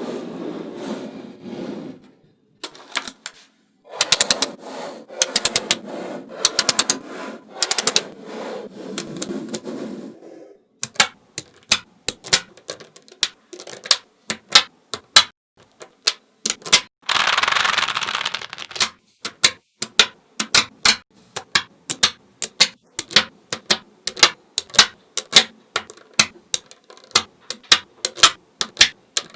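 Small magnetic balls clicking sharply as they snap onto one another one at a time, a few clicks a second. There are longer stretches of many balls rattling and rolling against each other: in the first two seconds, for several seconds from about four seconds in, and again for a couple of seconds past the middle.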